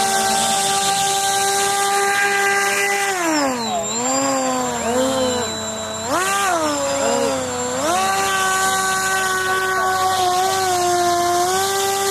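Model hovercraft motors and fans whining at a steady high pitch. About three seconds in the pitch drops as the throttle is eased back, then dips and surges a few times before climbing back to a steady whine near eight seconds.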